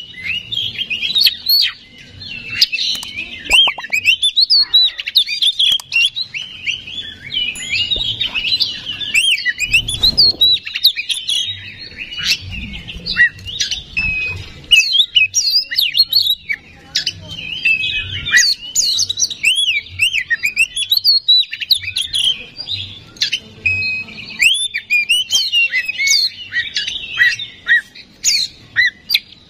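Oriental magpie-robin (kacer) singing a fast, varied song of chirps and whistled glides with hardly a pause, the full, energetic song that keepers play to rouse other magpie-robins.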